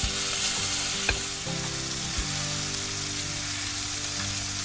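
T-bone steak frying in melted butter in a pan, sizzling steadily while it is basted. Three light knocks, about a second apart, come early on, from the basting spoon against the pan.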